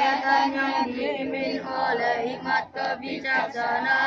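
A crowd of schoolchildren reciting a line of the Pancasila together in unison, a loud chanted chorus of many voices with a brief break about two and a half seconds in.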